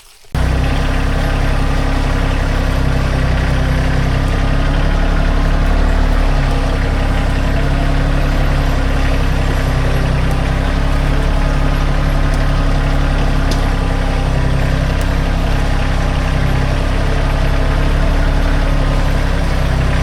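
An engine idling steadily, starting suddenly just after the start and holding an even, low hum throughout.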